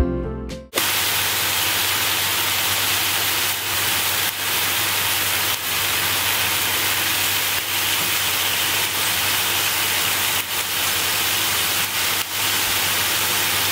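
Marinated beef strips sizzling steadily in a frying pan over a gas flame, with a few faint clicks as they are turned with wooden chopsticks.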